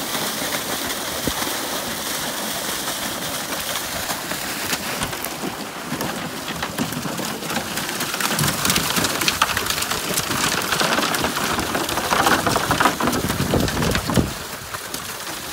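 Water gushing out of a fish-transport tank down a chute into a pond, a loud steady rush and splash, as live tench are released. In the second half scattered knocks and slaps stand out as the fish slide down the plastic chute.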